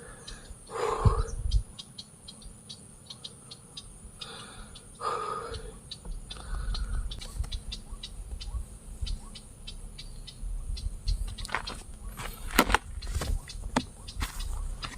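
Insects chirping in rapid high ticks, with two short mid-pitched calls about a second and five seconds in, and a low rumble and a few sharp clicks in the second half.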